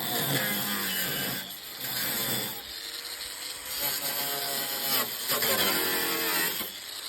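A small power tool running in about four bursts of one to two seconds each, its pitch shifting within each burst.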